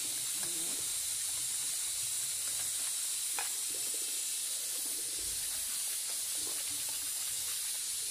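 A steady high hiss, with soft swishes and a light tap of a silicone whisk mixing salad dressing in a stainless steel bowl.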